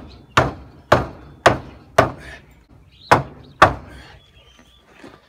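Hammer blows driving a bolt up through a pilot hole into a treated-pine fascia beam: five sharp strikes about two a second, a short pause, then two more.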